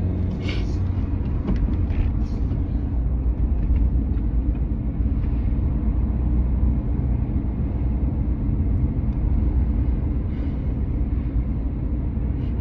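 Steady road and engine rumble inside a moving car's cabin, with a few brief soft noises over it near the start and again about ten seconds in.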